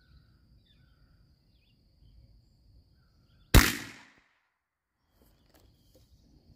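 A single gunshot from a Rossi Circuit Judge revolving rifle firing a 3D-printed shot capsule load: one sharp report about halfway through that dies away within about half a second.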